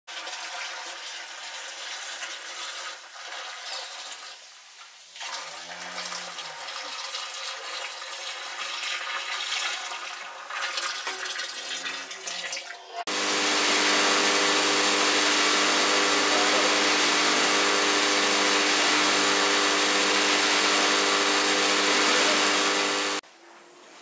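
Milk pouring from a steel milk can into a stainless-steel bulk milk cooler tank, a splashing, rushing stream. About halfway through the rush turns louder and steadier, with a low steady hum under it, then cuts off abruptly near the end.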